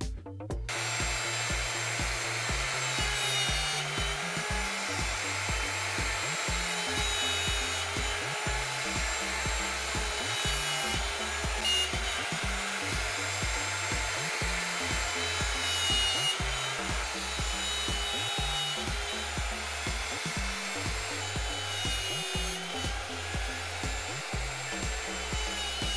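Router running steadily and cutting dovetail joints in walnut boards on a dovetail jig, with a high whine; it starts about half a second in. Background music with a repeating bass beat plays underneath.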